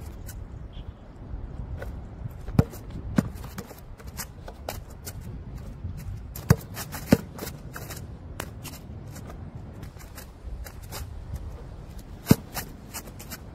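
Basketballs bouncing on an outdoor court: a string of irregular sharp bounces, a handful of them much louder than the rest.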